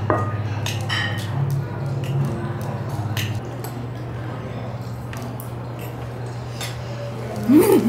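Knife and fork clinking and scraping on a ceramic plate as a steak is cut and eaten, a few scattered clicks over a low steady hum. Near the end, a short voice sound.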